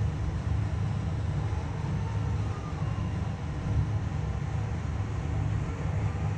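Steady low outdoor background rumble, with no distinct calls or other events standing out.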